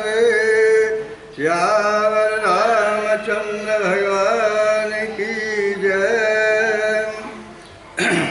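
A man's voice sings a long, wavering, drawn-out melodic line that closes a devotional bhajan, then fades out about seven seconds in. A brief noise near the end.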